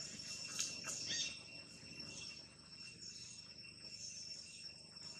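Insects trilling steadily as an outdoor background chorus, with a couple of brief clicks and a short chirp about a second in.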